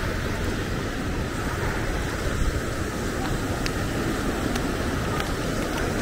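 Steady outdoor wash of wind buffeting the microphone, mixed with surf and street traffic along a beachfront.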